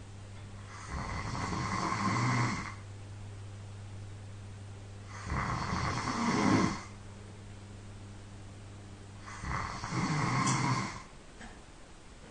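A sleeping person snoring: three long snores about four seconds apart, each swelling for a second or so and then stopping, over a low steady hum.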